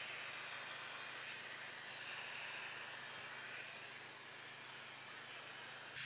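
Faint, steady hiss-like noise with a low hum beneath it, easing slightly toward the end.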